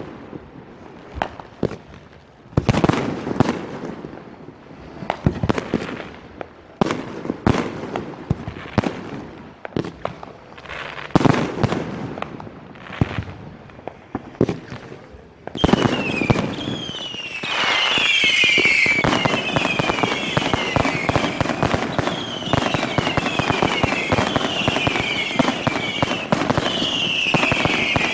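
Aerial fireworks display: separate shell bursts going off and echoing about once a second, then about halfway through a dense barrage of rapid bangs and crackling with repeated high, falling whistles.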